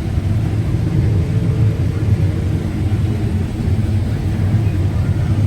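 John Deere S660 combine running steadily, a constant low rumble of engine and machinery.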